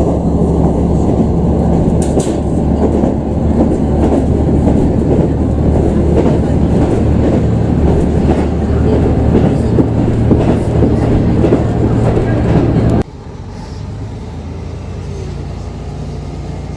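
Train running on the rails: a loud, steady rumble with clatter. About 13 seconds in it cuts off suddenly to a much quieter steady low hum.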